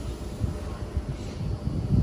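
Tangara double-deck electric train running slowly into the platform, a low rumble, with gusts of wind buffeting the microphone.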